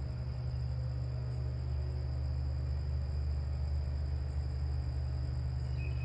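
Steady low rumble of traffic on a country road, with a continuous high-pitched cricket trill over it and a brief higher chirp near the end.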